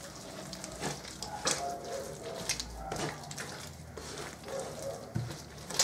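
Bare hand kneading and mixing a wet paste of butter, sugar and milk on a wooden table: soft, irregular squishing and slapping, with a sharper slap near the end.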